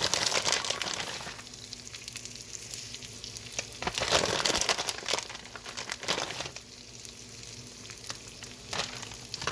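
Cheese and bacon sizzling on the hot plates of a Dash mini waffle maker making a chaffle, a crackling hiss that swells in surges near the start, around the middle and again a little later.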